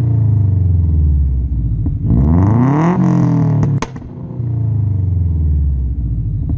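2004 Subaru Impreza WRX's turbocharged flat-four heard at the exhaust, idling and blipped once: the revs rise and fall about two seconds in. Sharp exhaust pops crack out, a pair of them as the revs drop and one near the end: the 'popcorn' overrun pops of a remapped ECU.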